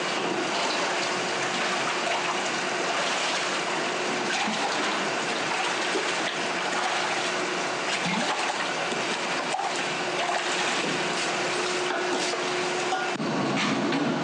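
Water splashing and sloshing as aluminium pressure-cooker bodies are dunked and rinsed in a water tank. A faint steady hum runs underneath. Near the end the sound changes abruptly to a different steady noise.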